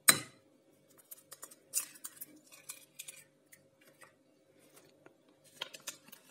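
A raw egg cracked with one sharp tap against a glass mixing bowl, then light crackling and small clicks of the shell as it is pulled apart over the bowl. A few more small clicks near the end.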